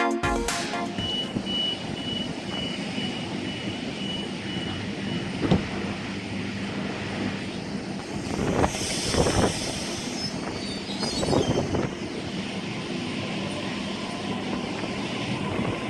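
Train passing on the line: a steady rail rumble with a few clanks and surges, and a thin high whine for a few seconds near the start.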